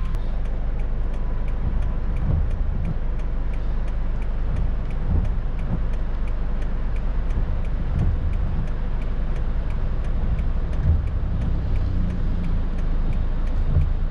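Car running, heard from inside: a steady low engine and road rumble with a regular light ticking about three times a second.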